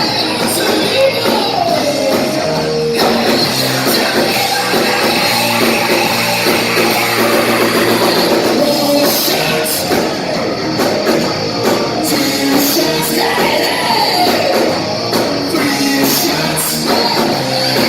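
A live rock band playing loud, with a singer.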